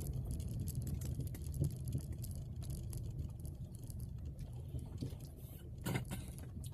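Car driving slowly over an unpaved dirt road, heard from inside the cabin: a steady low rumble of engine and tyres, with many small rattling clicks from the car jolting over the rough surface.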